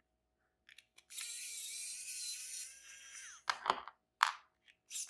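A small electric tool motor whirring steadily at a high, fixed pitch, stopping for about two seconds, during which two loud knocks sound, then starting up again near the end.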